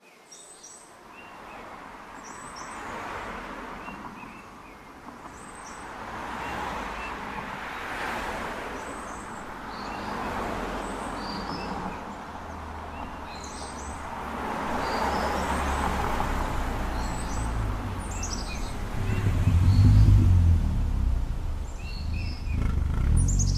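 Outdoor ambience with small birds chirping in short, high calls every second or two, over a broad rushing sound that swells and fades every few seconds. A low rumble builds up over the last few seconds.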